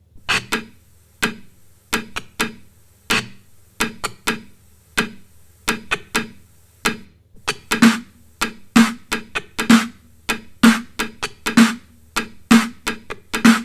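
Electronic drum-machine beat of short, sharp percussion hits with no melody, sparse at first; in the second half a heavier low hit lands about once a second with lighter hits between.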